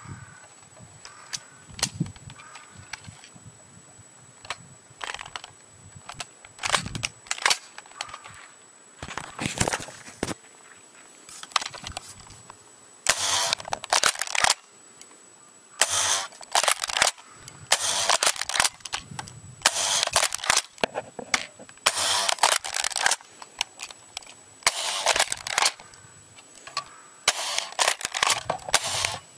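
KTW Ithaca M37 sawed-off spring airsoft pump shotgun being handled, pumped and fired: sharp mechanical clacks of the pump action and the snap of each shot. Scattered clicks at first, then about halfway through it settles into a quick run of pump-and-shoot clusters, one every second or two.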